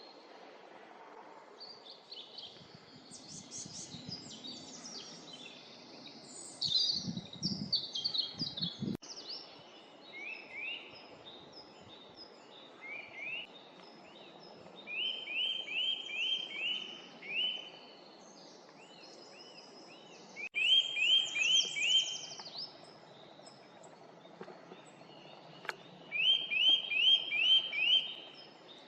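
Songbirds singing in a forest: one bird repeats a short phrase of about five quick rising notes three times, over other birds' varied twittering. A few soft low thuds come about seven to nine seconds in.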